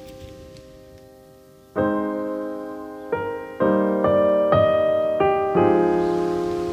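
Background piano music: a chord dies away slowly, then about two seconds in a new chord is struck and a gentle melody of several notes follows.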